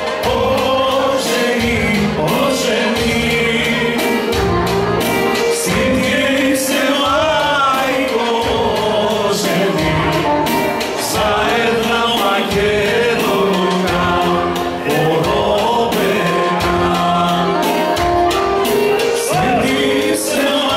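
Live Macedonian folk song: a man singing over an amplified keyboard accompaniment with a steady, regular beat.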